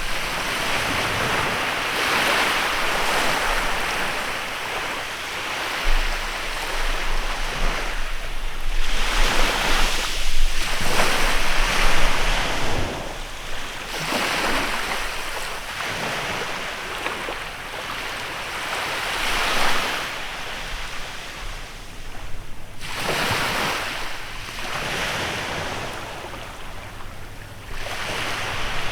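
Small waves breaking and washing up a beach in a bay, the surf surging and drawing back in repeated swells a few seconds apart.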